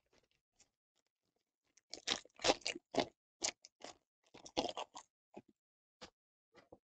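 Plastic foil wrapper of a Panini Absolute Football jumbo card pack crinkling and tearing as it is ripped open: a dense run of crackles lasting about three seconds, then a few short separate crackles.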